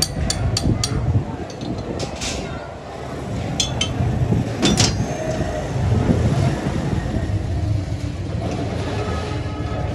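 Metalworking noise: a steady low rumble with a run of sharp metal clinks and knocks in the first half.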